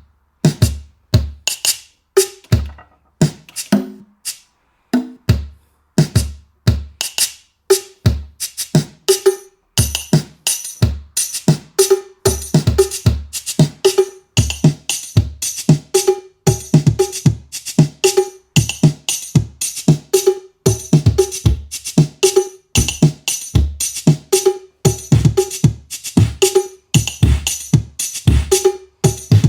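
Linn LM-1 drum machine playing a beat from its own sequencer: a steady pattern of sampled kick drum, pitched drum hits and bright percussion, busier from about eight seconds in. The sequencer is running again after repair of its bit-rotten EPROMs, while its hi-hats are not yet sounding.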